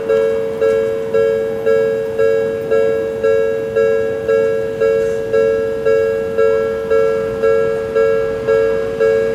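Japanese railway level-crossing alarm ringing: an electronic two-note bell struck evenly about twice a second, each strike fading before the next.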